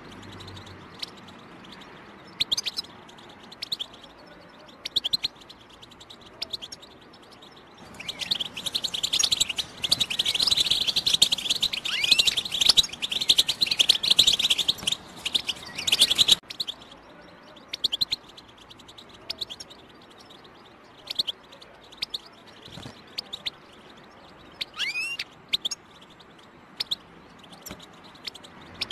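European goldfinch calling with short, sharp chirps spaced a second or so apart. About eight seconds in it breaks into fast, dense twittering song for some eight seconds, which stops suddenly, and the scattered chirps then resume.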